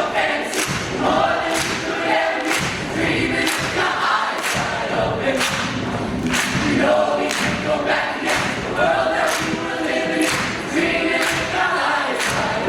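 High-school show choir singing in harmony over its band, with a sharp percussion hit about once a second keeping the beat.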